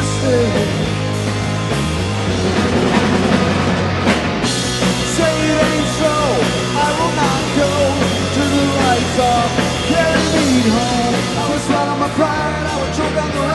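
Rock band playing: a male lead singer over drum kit and electric bass.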